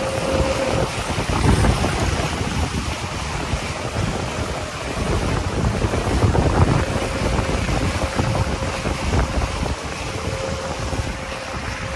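Wind buffeting the microphone over the rush of water along the hull of a Melges 24 sportboat sailing fast downwind, swelling in surges twice. A faint steady hum comes and goes near the start and again near the end.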